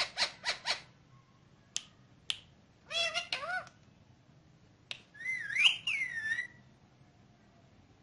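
Indian ringneck parakeet calling: a quick run of short harsh squawks, about six a second, stops just under a second in, then a few sharp clicks and two warbling calls that glide up and down in pitch, the second longer and louder.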